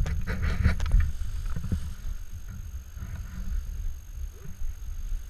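Wind buffeting an action camera's microphone as an uneven low rumble, with scattered clicks and rustles of harness straps and buckles being handled.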